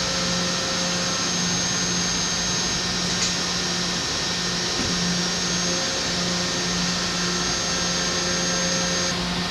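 DMG Mori NTX 1000 mill-turn CNC lathe machining a bar held between chuck and tailstock under flood coolant: a steady hiss of coolant spray over a constant low machine hum. A high, thin whine runs along with it and cuts off just before the end.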